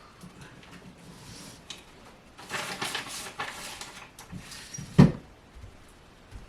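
Papers and craft supplies being handled and shuffled, with a burst of rustling about two and a half seconds in, then a single sharp thump about five seconds in as something is set down or shut.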